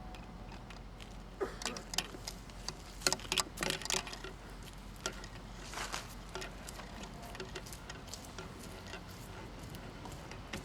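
Small clicks and clinks of plumbing parts being handled while threaded fittings are fitted together, a quick run of them in the first few seconds and a few more after, over a low steady hum.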